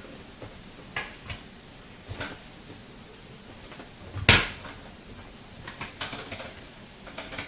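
Hard plastic parts inside a dishwasher's sump clicking and knocking as a part is twisted and worked loose by hand, with one loud sharp knock about four seconds in.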